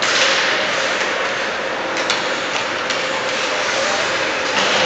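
Ice hockey game sound in a rink: a steady scraping hiss of skate blades on the ice, with a few sharp clacks of sticks and puck about two and three seconds in, over a steady hum.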